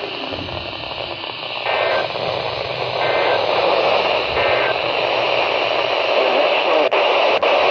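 Weather radio receiver hissing with steady static, no voice coming through; two short clicks near the end.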